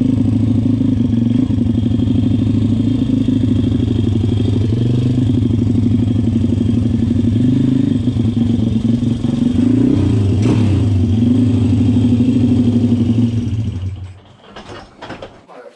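WPB 140 pit bike's single-cylinder four-stroke engine running steadily at low revs as it is ridden slowly, then it stops about fourteen seconds in.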